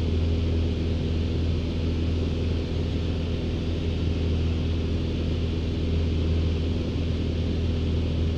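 Van's RV light airplane's piston engine and propeller droning steadily at formation cruise, heard from inside the cockpit, with a strong low hum and airflow hiss over it.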